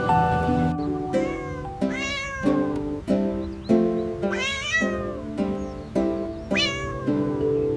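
A cat meowing several times, each meow rising then falling in pitch, over light plucked-string background music.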